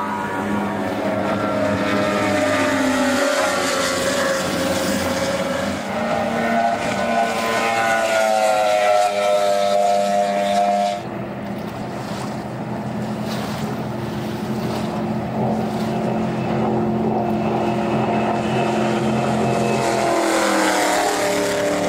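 Waterski racing boats' engines running at high revs as the boats speed past, the engine note rising and falling in pitch, with a sudden change about halfway through.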